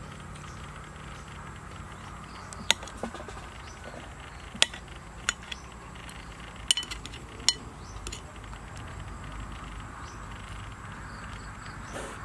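Metal spoon clinking against a glazed clay bowl and a plate while soup is served onto rice: a handful of sharp, separate clinks a second or so apart, over a faint steady background hiss.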